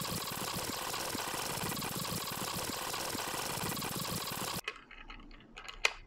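Screws being driven into a 2.5-inch SSD in a laptop's drive caddy: a steady, even whirring-rattling noise that cuts in abruptly and stops abruptly after about four and a half seconds, followed by a few light clicks.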